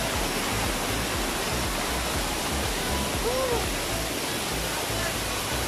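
Water from small waterfall cascades pouring onto rock and into a shallow pool: a steady, even rushing splash.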